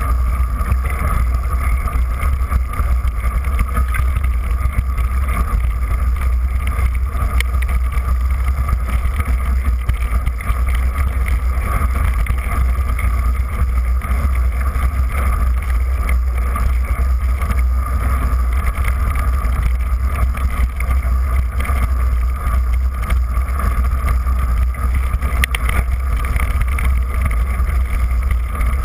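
Steady, loud rumble of wind buffeting and trail vibration picked up by a bike-mounted camera while a mountain bike rides down a snowy trail.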